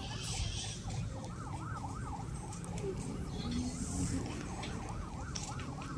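A siren yelping, its pitch sweeping up and down about four times a second, over a steady low rumble.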